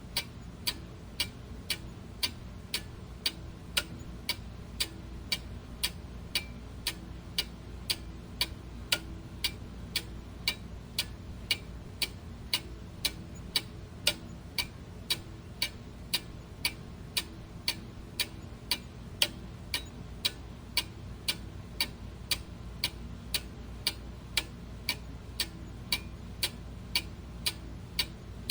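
Clock ticking steadily with sharp, evenly spaced ticks, over a faint low background hum.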